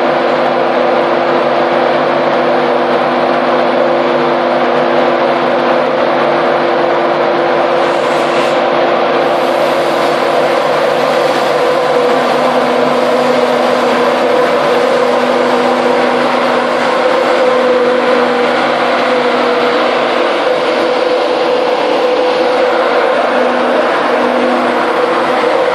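Class 91 electric locomotive pulling slowly away, giving off a loud, steady whine of several held tones over a broad rumble.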